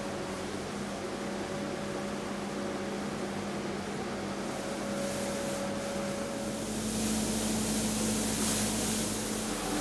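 Brodd YESS compact street sweeper running steadily: an engine hum under the hiss of its two rotating side brushes on paving. About seven seconds in the sound grows louder, with more hiss.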